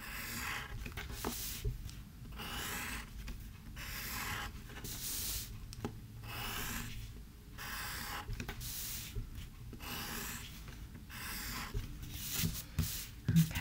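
Pencil drawing on paper: a run of short scratchy strokes, about one a second.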